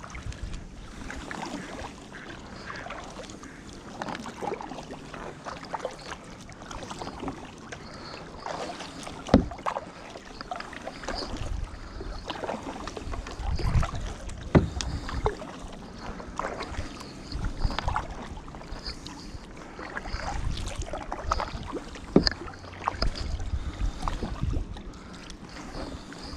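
Kayak being paddled: paddle strokes swishing and dripping in the water, with a few sharp knocks along the way.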